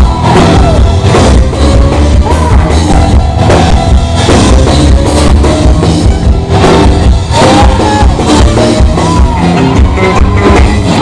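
A live rock band playing loud and full, with a pounding drum kit and sliding, wailing pitched lines over the top.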